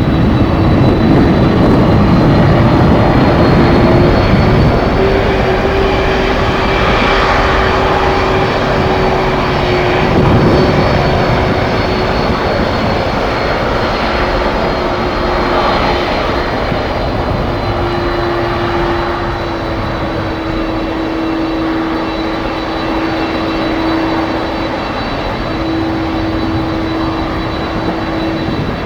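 Jet airliner engines running with a steady whine over a dense rush of engine noise, with a heavier low rumble in the first few seconds.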